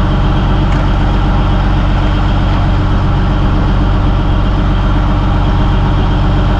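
Fishing trawler's diesel engine running with a steady, unchanging drone.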